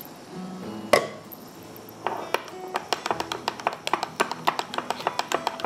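Metal spoon clicking against a ceramic bowl while cream cheese is beaten into a sauce: one sharp knock about a second in, then quick, uneven clicking several times a second from about two seconds in. Faint background music underneath.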